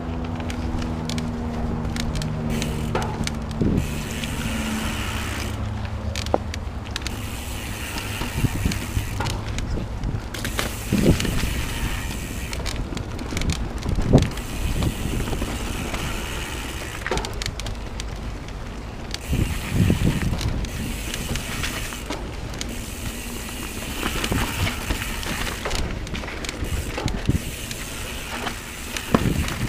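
Mountain bike ridden fast down a dirt forest singletrack: a steady rumble of tyres and wind, with frequent knocks and rattles as the bike hits bumps and roots, and stretches of freehub ticking while coasting.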